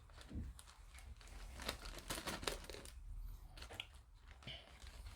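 Faint handling sounds: scattered light clicks and rustling as small plastic model-kit parts are picked up and moved about.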